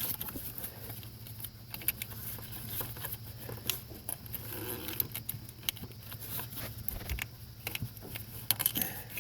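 Irregular small clicks and rattles as an electrical wire cover is slipped and worked around an AC line quick-connect fitting, over a steady low hum.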